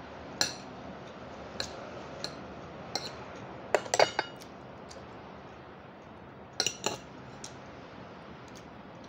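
Metal fork and spoon clinking and scraping on a ceramic plate while eating, a scattering of sharp clinks. The loudest cluster comes about four seconds in with a brief ring, and another pair near seven seconds.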